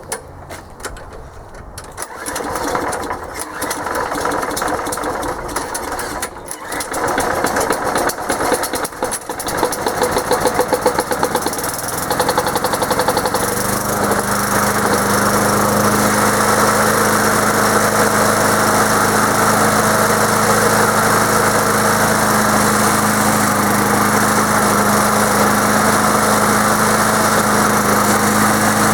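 Old lawn mower's small gasoline engine being cranked, turning over in fits and starts for several seconds, then catching about thirteen seconds in and settling into a steady run. It is hard to start with the alternator belted to it, as the owner says.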